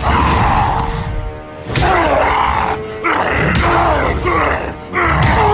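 Animated superhero fight soundtrack: dramatic background music with gruff voices grunting and straining, and several sudden hits.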